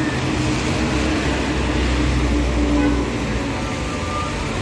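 Street traffic on a rain-wet road: vehicle engines running and tyres on wet asphalt, with a low engine rumble that is strongest between about one and three seconds in as a vehicle passes.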